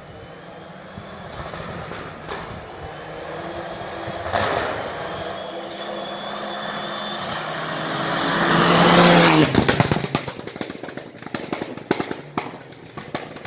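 Rally car running flat out on a gravel stage, its engine growing louder as it approaches and passing at a loud peak about nine seconds in, with the pitch dropping as it goes by. A rapid crackling clatter follows as it drives off.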